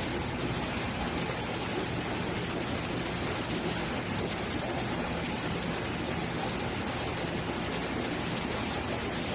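Aquarium air-driven sponge filters running: a steady rushing of bubbling, moving water with a faint low hum underneath.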